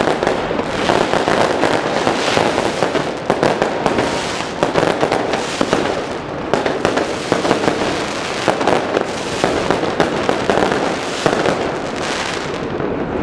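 Fireworks going off in a dense, continuous stream of crackles and pops with no pause.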